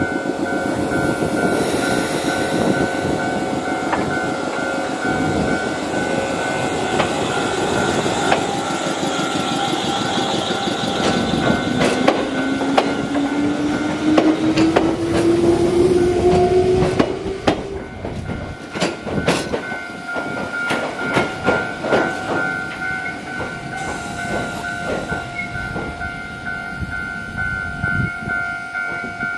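Choshi Electric Railway 22000-series electric train running past close by as it pulls out of the depot: motor whine rising in pitch as it accelerates, then wheels clacking over the rail joints as it moves away. A level crossing warning bell rings steadily, breaking off briefly about two-thirds of the way through and starting again.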